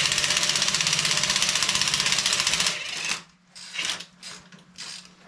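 Impact wrench hammering on a bolt in a rapid, steady rattle, which stops a little under three seconds in; the bolt has not broken loose. A few light metal clinks of tools follow.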